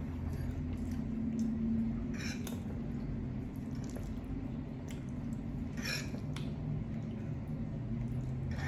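Close-miked eating sounds: wet chewing and a few short, sharp mouth smacks and clicks, over a steady low hum.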